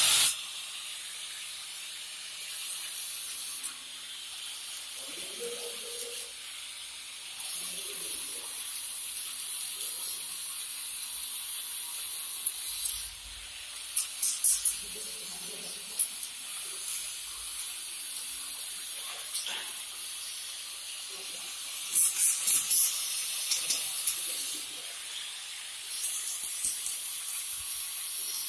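Hand-held angle grinder running and grinding a metal frame: a steady high hiss, harsher and louder in two stretches, about halfway through and again a few seconds later, as the disc bites into the metal.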